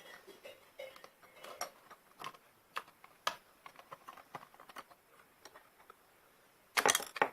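Light, irregular clicks and taps of a small screw and plastic headphone parts being handled and fitted together, with a louder clatter near the end.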